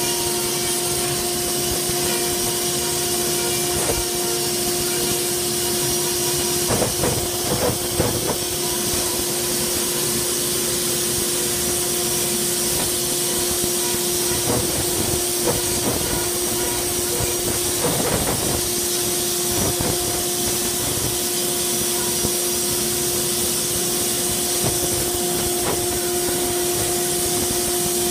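Dust-collection hose sucking air with a steady hiss, under the steady whine of a flex-shaft rotary carving tool grinding wood; the whine weakens in the middle. A couple of brief clattering knocks come about a third of the way in and again past the middle.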